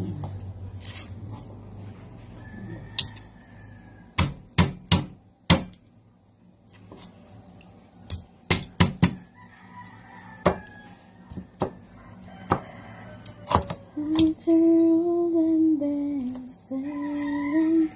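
Kitchen knife clicking and knocking sharply, one stroke at a time, while garlic cloves are peeled and cut, with clusters of strokes in the first half. In the last few seconds a loud, held hum steps up and down in pitch.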